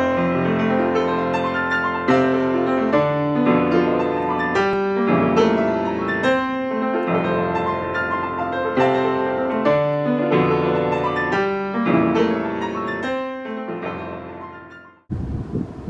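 Solo piano music, chords struck and changing about once a second, fading out near the end. Just before the end it cuts abruptly to outdoor noise with wind on the microphone.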